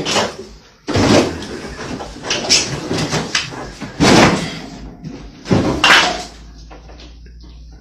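A refrigerator being banged and shoved about: a series of loud thuds and rattles, the strongest about a second in and about four seconds in. A low steady hum follows near the end.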